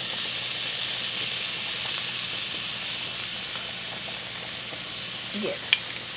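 Tomato pasta sauce sizzling in a hot frying pan of browned ground beef, onions and mushrooms as it goes in, a steady hiss that eases slightly. There is a light tap near the end.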